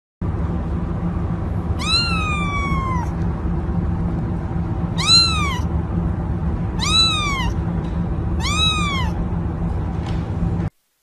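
Kitten meowing four times, each call rising then falling in pitch, the first one longer than the rest, over a steady low background hum.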